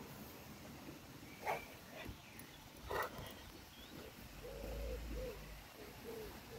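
A Briard dog gives two short barks about a second and a half apart, then soft, low cooing calls come in the background near the end.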